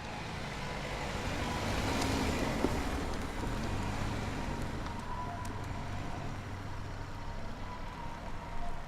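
A road vehicle going by: its noise swells over the first two seconds or so, then slowly fades, with a deep rumble underneath.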